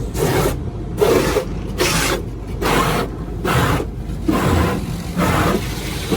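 Automatic car wash rinse heard from inside the car: strong water spray sweeping over the body in rhythmic swishing pulses, about one every 0.8 seconds.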